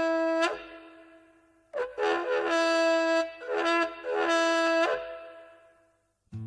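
A horn-like wind instrument blown in long held blasts, jumping between a few pitches: one blast ending about half a second in, then a run of several blasts from about two seconds in to five, each note trailing off in a long echo.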